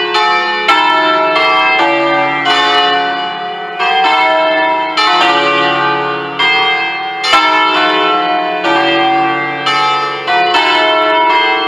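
A five-bell peal in D, bronze bells cast by Pruneri in 1953 and swung electrically, ringing together with strokes coming every half second or so over a continuous ringing hum. It is a solemn festive peal calling to High Mass.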